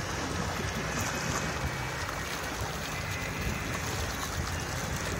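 Steady wash of water and wind noise around a small boat on a choppy sea, with no distinct splashes.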